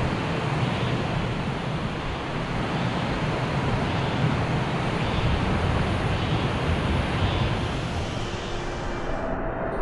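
Steady rushing of a rain-swollen mountain stream. Near the end the hiss drops away and faint music comes in.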